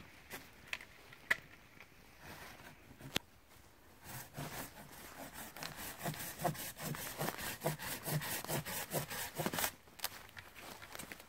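Folding pruning saw cutting through a green hazel stem, in regular strokes at about three a second. The sawing starts about four seconds in and stops shortly before the end, after a couple of sharp clicks.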